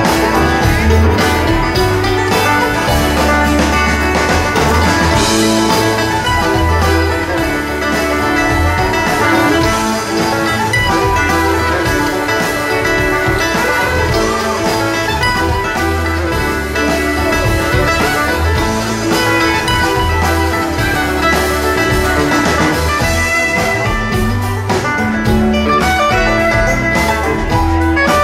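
Live band music from a string band, heard from the club floor: an instrumental stretch led by plucked strings over a steady bass, with no sung words.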